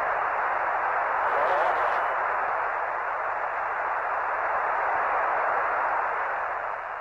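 Steady radio hiss on an open Apollo 11 voice channel, thin and narrow like a telephone line, with no one speaking. It eases off slightly near the end. The hiss comes at a time of a weak, dropping-out signal from the lunar module.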